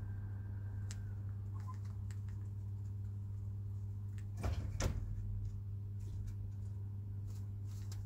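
Chickens pecking and moving about in a coop: scattered light taps, with two louder knocks close together about four and a half seconds in, over a steady low hum.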